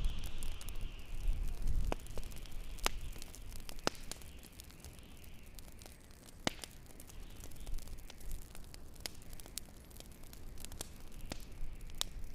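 Wood fire crackling, with scattered sharp pops at irregular intervals over a low rumble.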